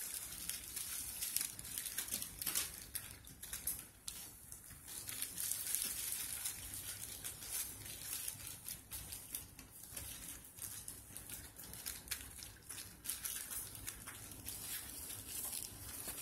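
Paper bedding rustling and crinkling under puppies' paws as they scramble about, with light scrabbling footfalls in irregular spurts.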